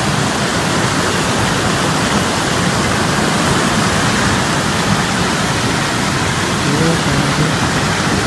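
Swollen, muddy river in flood, its fast water rushing and churning over a weir-like drop in a steady, loud, unbroken rush. The river is running high after days of continuous rain.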